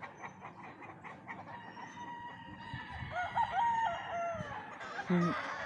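Gamecock roosters crowing, several at once: one clear crow about three seconds in rises, holds and then falls away, over fainter crows from other birds.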